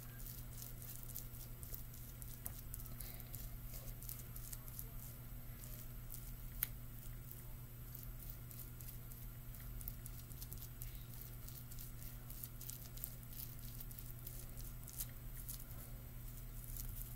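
Spoon pressing and spreading sticky sushi rice over a nori sheet: many faint small taps and scrapes, with one sharper click about six and a half seconds in, over a steady low hum.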